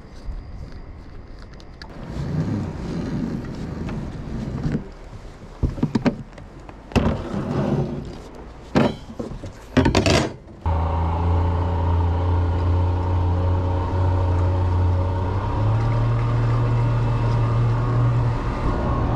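Knocks and scrapes as a metal grapnel anchor and its rope are pulled aboard a small fibreglass boat. Then a two-stroke outboard motor starts running steadily, its pitch stepping up about three-quarters of the way through as the throttle opens.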